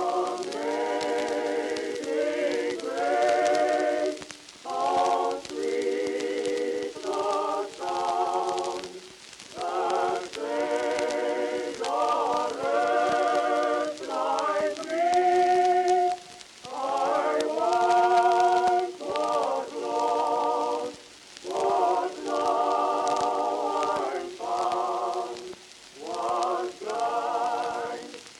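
Choral singing: several voices hold slow, wavering notes in phrases of one to two seconds, broken by short pauses.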